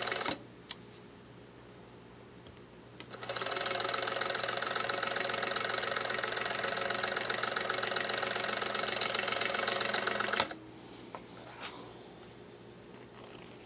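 Singer 221 Featherweight sewing machine running with a pinking attachment chopping a zigzag edge into thin silk lining. A short burst and a click come in the first second. Then the machine runs steadily for about seven seconds from about three seconds in, and stops abruptly.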